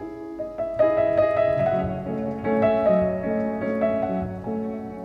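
Instrumental background music: a piano playing a melody of single notes and chords.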